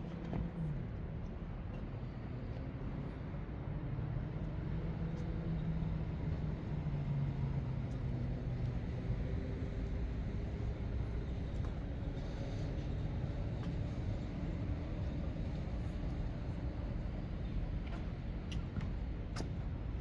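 A motor vehicle's engine running over a steady low rumble of traffic, getting a little louder about four seconds in.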